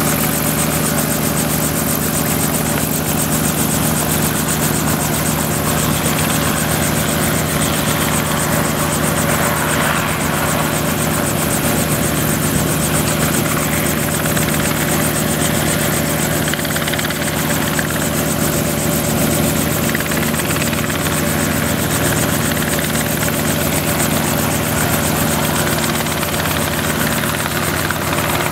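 Robinson R44 helicopter hovering low: its six-cylinder Lycoming piston engine and rotor blades running steadily, with a fast, even beat.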